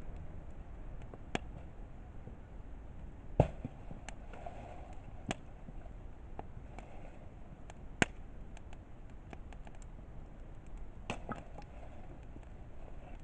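Wood campfire crackling, with scattered sharp pops from the burning firewood; the two loudest come about three and a half seconds in and about eight seconds in.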